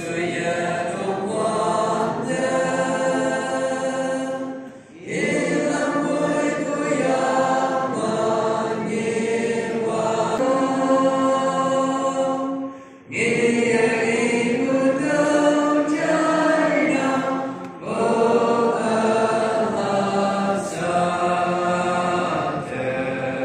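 A group of voices singing a slow hymn in long held notes, in four phrases with short breaths between them.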